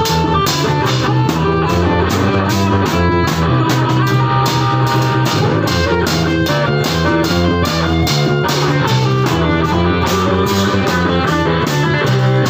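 Small live rock band playing an instrumental passage: electric guitars over a drum kit keeping a steady beat.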